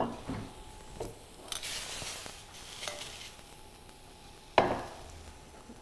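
Metal utensil clinking and scraping in a stainless steel skillet as pieces of pan-fried tofu are lifted out, with a few light clicks and one louder ringing clank about four and a half seconds in.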